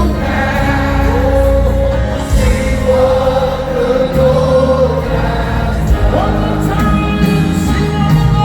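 Gospel worship music: a choir singing over a band, with a sung vocal line holding long notes and a steady bass.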